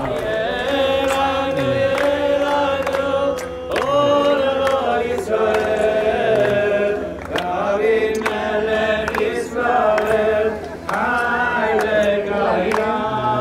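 Vocal music: singing in long held notes, in phrases of two to three seconds with short breaks between them.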